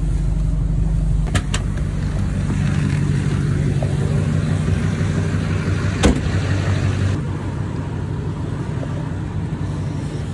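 Steady low rumble of engines running at a scrapyard, from the idling pickup truck and the heavy equipment at work, with a couple of clicks about a second and a half in and a single sharp knock about six seconds in. The sound eases slightly after about seven seconds.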